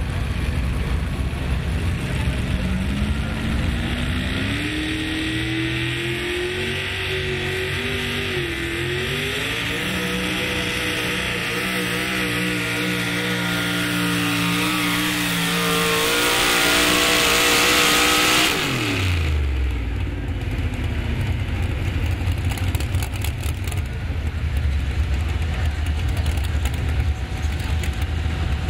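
Pro Mod four-wheel-drive pulling truck's Hemi V8 engine at full throttle under load, its pitch climbing steadily over more than fifteen seconds as the truck pulls the sled down the track. Its loudest stretch comes just before the engine is shut off, about two-thirds of the way through. The pitch then drops away quickly and leaves a low rumble.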